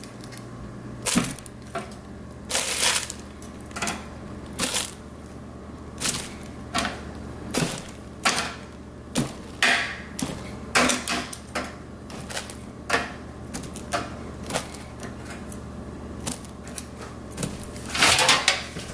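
Metal kitchen tongs clicking against a wire rack and browned oxtail pieces dropping into a plastic-lined slow cooker, in irregular sharp clicks every second or so. A louder rattle near the end as the rack and sheet pan are picked up.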